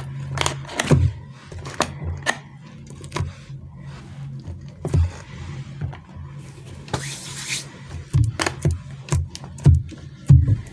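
Hands handling squishy anti-stress toys: irregular taps and clicks with rubbing and scraping, and a short rustle about seven seconds in.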